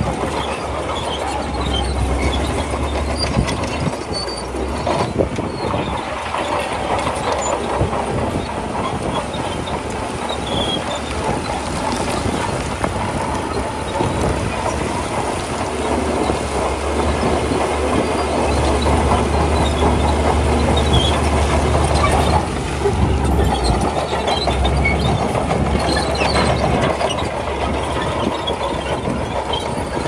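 Shantui crawler bulldozer working: its diesel engine runs steadily under load while the steel tracks clank and squeal as it pushes stone.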